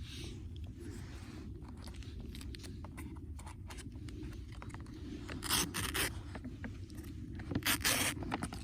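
Two short bursts of raspy scraping, the second near the end, over scattered light clicks and a steady low rumble.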